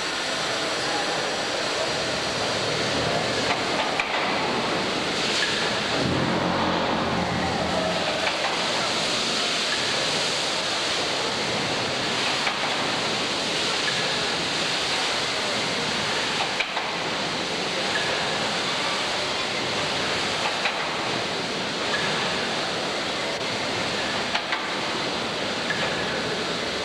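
Steady rushing din of the 1913 Allis-Chalmers steam pumping engine running in its engine house, with faint knocks every few seconds.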